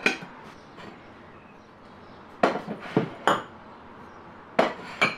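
Ceramic bowls clinking against each other as they are stacked on a cupboard shelf: a clink at the start, three more about halfway through, and two near the end.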